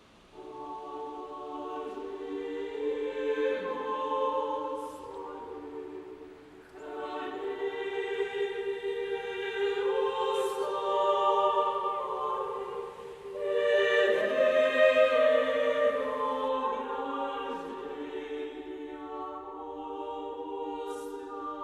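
Choral music: a choir holding sustained chords in long phrases that swell and fade, a new phrase beginning about every six to seven seconds.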